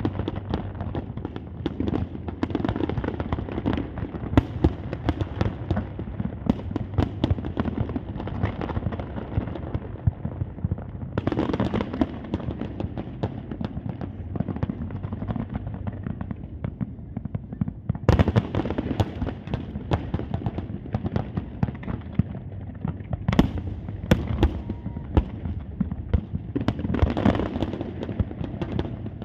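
Fireworks display: a dense, continuous crackle of many sharp bangs and pops, broken four times by louder, fuller bursts of shells.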